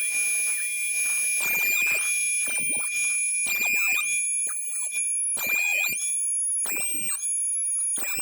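DeWalt DW735X thickness planer running with a loud, high-pitched whine while planing boards, its pitch dipping and recovering several times, about once every second or so.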